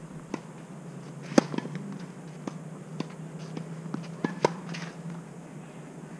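Tennis balls being struck with rackets on a clay court: sharp pops about a second and a half in and again near four and a half seconds, with fainter knocks and ball bounces in between.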